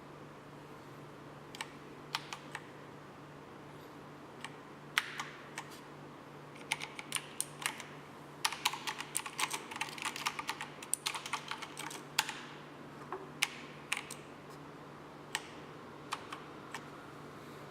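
Keys of a 1STPLAYER Steampunk V2 mechanical keyboard being pressed. A few scattered single clicks are followed in the middle by several seconds of rapid keystrokes, which thin out to occasional single presses near the end. A faint steady hum sits underneath.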